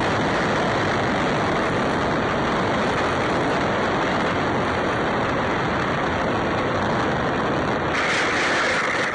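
Electric motor and propeller of an E-flite Apprentice RC trainer plane heard from a camera on board, a loud steady rush of prop wash and wind over the microphone. The sound turns brighter about a second before the end.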